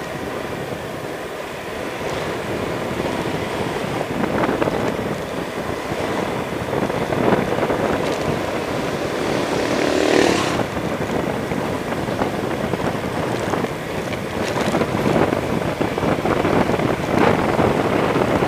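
Honda scooter on the move: its engine runs steadily under wind noise buffeting the handlebar-mounted camera's microphone, with a brief louder rush of noise about ten seconds in.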